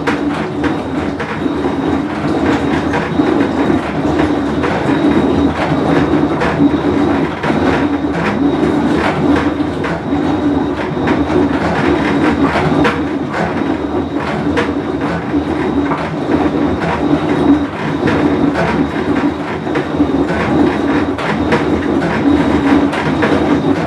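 Whirlpool Cabrio top-load washer running with a loud, steady rumble and a constant clatter of rattles and clicks: the noise of a worn tub bearing.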